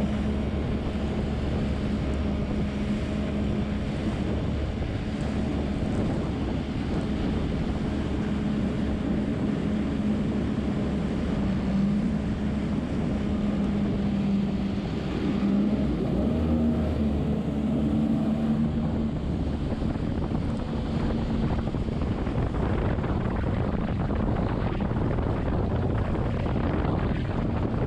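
Jet ski (personal watercraft) engine running steadily at speed, its pitch wavering a little, with wind buffeting the microphone and water spray hissing. After about twenty seconds the engine tone drops back and wind and water noise take over.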